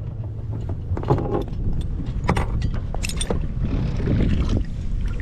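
Low rumble with scattered knocks and clatter on a small fishing boat as it is repositioned.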